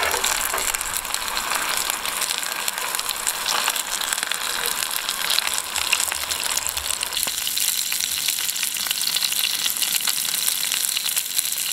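Hot oil sizzling and crackling steadily around panko-breaded venison schnitzels shallow-frying in a cast iron skillet.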